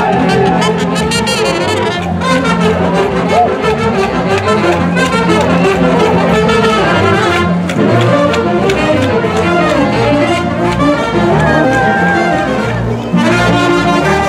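Brass band playing a lively dance tune, trumpets and trombones over steady bass notes, with percussion keeping an even beat.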